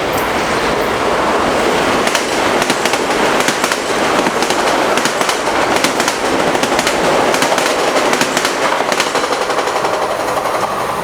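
A train passing at speed close by, its wheels rumbling on the rails with rapid sharp clicks as they cross rail joints. The sound eases off near the end.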